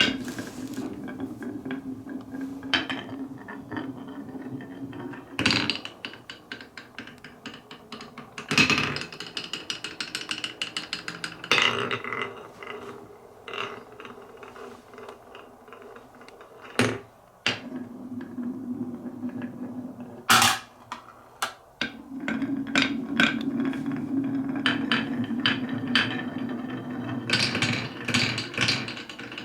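Marbles rolling along wooden marble-run tracks with a steady rumble, clicking and clacking against the wood as they drop through the course, with a few louder knocks along the way.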